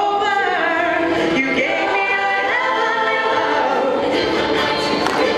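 Show choir singing in parts, many voices moving together on sustained, gliding notes.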